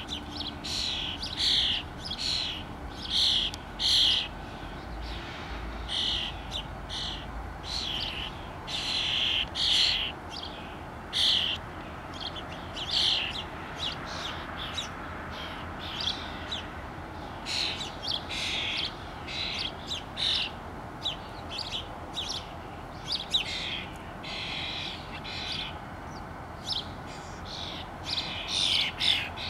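Starlings, young ones among them, calling with short, harsh chirps repeated about once or twice a second, over a steady background noise.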